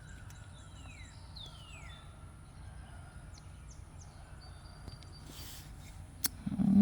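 Birds chirping, a few short falling calls and a thin whistle, over a steady low hum, with a brief louder sound right at the end.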